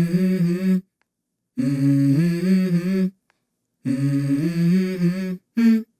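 Background music: a hummed vocal melody in three phrases of about a second and a half each, broken by short silent gaps, with a brief snatch of a fourth phrase near the end.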